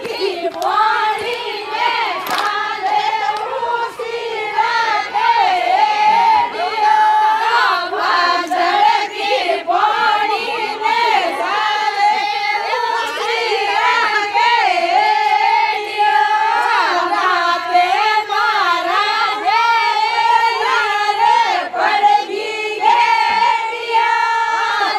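A group of women singing a Marwari Fagan folk song together, one continuous melody, with sharp handclaps marking the beat.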